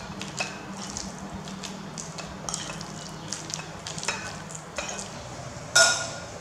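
Metal spoon stirring a wet filling of shredded vegetables and minced meat in a ceramic bowl: soft squishy mixing with scattered clicks of the spoon against the bowl. Near the end comes one loud, ringing clink of spoon on bowl.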